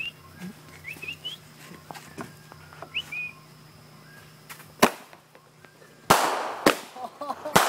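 Fireworks going off: a single sharp bang about five seconds in, then a louder bang with a hissing trail, and two more sharp bangs near the end. Before them, faint high chirps.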